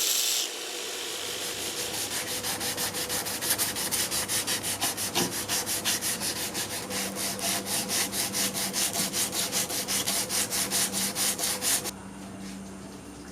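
Steel knife blade rubbed back and forth by hand on an abrasive, in even strokes about three to four a second, stopping abruptly near the end. A brief loud hiss cuts off about half a second in.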